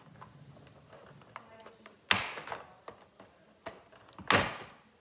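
Two short, sharp cuts of scissors, about two seconds apart, each trailing off briefly, with faint light clicks and taps in between.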